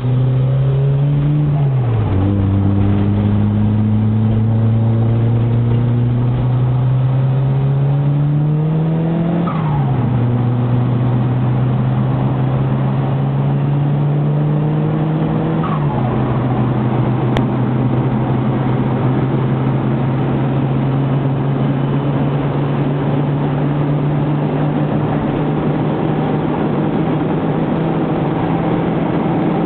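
Turbocharged Ford Escort XR3 engine heard from inside the cabin, accelerating hard through the gears. The revs climb and drop at three upshifts, about two, nine and a half and sixteen seconds in, then hold steady at speed.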